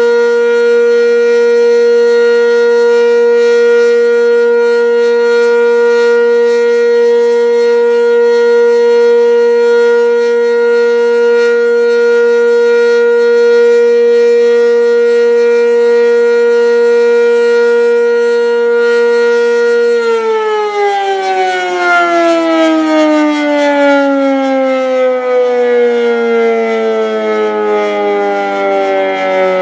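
Sentry 10V electromechanical outdoor warning siren sounding a loud, steady tone, then cut off about two-thirds of the way through and winding down, its pitch falling slowly as the rotor loses speed.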